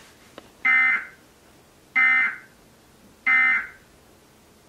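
Emergency Alert System end-of-message data tones played through a television speaker: three short buzzing digital bursts about 1.3 seconds apart, signalling the end of the tornado warning broadcast.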